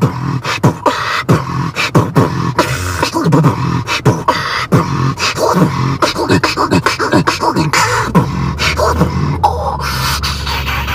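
Human beatboxing: a fast, steady beat of mouth-made percussion, with sharp clicks and deep kick-drum thumps that drop in pitch. A low steady rumble comes in underneath after about eight seconds.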